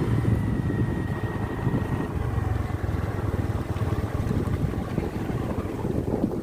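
A motor vehicle's engine running while on the move, with a dense, uneven low rumble that drops away at the end.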